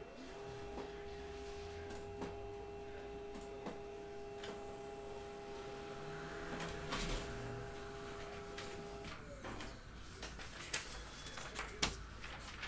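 Printer running through a print job: a steady motor whine that spins up at the start and winds down about nine seconds in. A run of sharp clicks and knocks follows as the sheet comes out and is handled.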